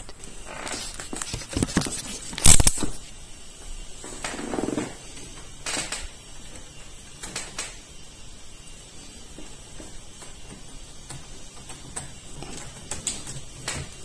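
Handling noise: a few scattered clicks and knocks, the loudest about two and a half seconds in, with a soft rustle a couple of seconds later and lighter clicks after.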